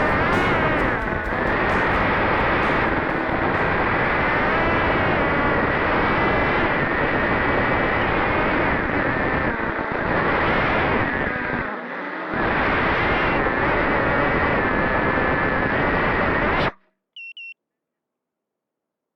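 Diatone Tyrant 215 quadcopter's motors whining through acro flying, the pitch rising and falling with the throttle and dipping briefly about twelve seconds in. The sound cuts off abruptly a few seconds before the end, followed by two short high electronic beeps.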